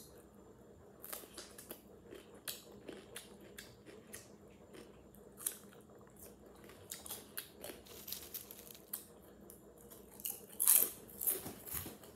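Close-up eating sounds of a raw cucumber slice being bitten and chewed: a run of short, crisp, wet crunches, with a louder cluster of crunches near the end.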